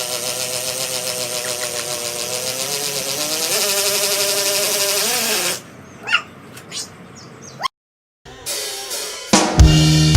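Music with drums and cymbals that cuts off abruptly about halfway through. A few faint short sounds and a moment of dead silence follow, then loud rock music with heavy bass starts near the end.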